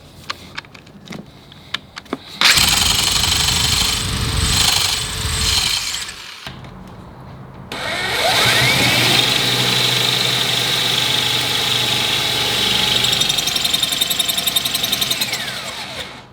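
Electric drill boring into thick, layered steel. After a few light clicks, there is a loud burst of drilling about two and a half seconds in, lasting about four seconds. Then the drill motor whines up in pitch, runs steadily under load, and winds down just before the end. The bit is struggling to get through the hard steel.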